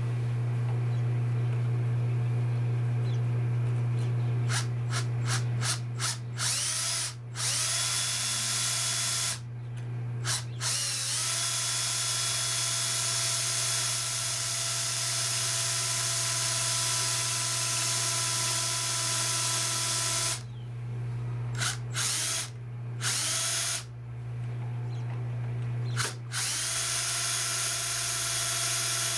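Power drill boring a small pilot hole through a solar panel mounting for a corner bolt, before a larger bit is used. It runs in long steady stretches with several trigger releases: a quick series of short stops a few seconds in, then pauses later on, the motor spinning back up after each.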